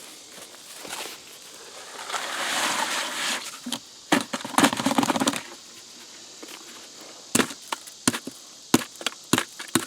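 Wet concrete being worked into a concrete block core with a trowel: a stretch of gritty scraping, then a quick run of sharp knocks and clicks, and a few single knocks near the end.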